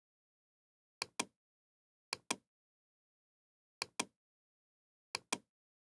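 Computer mouse clicks: four double clicks, each a press and release about a fifth of a second apart, spread over several seconds with dead silence between.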